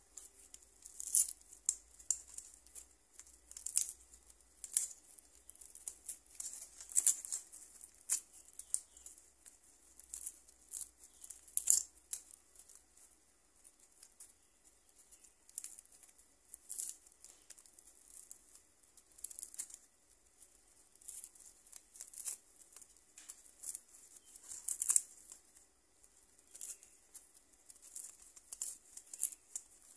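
Dried cattle leg tendon being torn apart by hand into sinew fibres: short, irregular tearing rasps with brief pauses between them, a louder one every few seconds.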